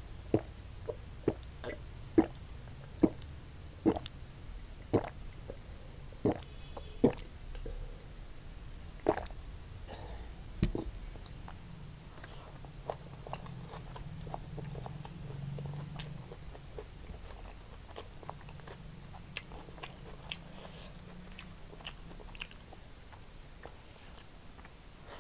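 Close-miked swallowing gulps of juice from a glass, about one a second for the first seven seconds, then softer wet chewing, lip smacks and small clicks of a mouthful of fried rice eaten by hand.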